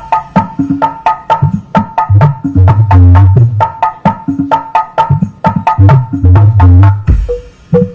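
Music with a fast, busy percussion beat and deep bass notes, played loudly through a pair of 15-inch planar bass boxes fitted with BMA 15500 woofers during a sound check.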